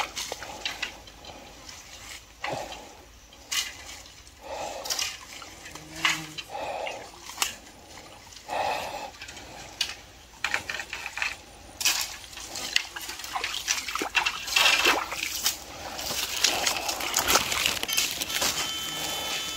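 Footsteps wading through a shallow, muddy stream: irregular splashes and sloshes of water.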